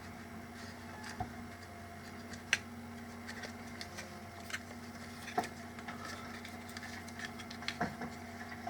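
Small clicks and taps of plastic speaker parts being handled and fitted back together, with a few sharper clicks scattered through, over a faint steady hum.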